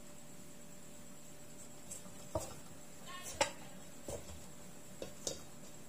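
A few light, irregular knocks and clicks as hands work crumbly pie dough in a stainless steel mixing bowl, the sharpest about halfway through, over a faint steady hum.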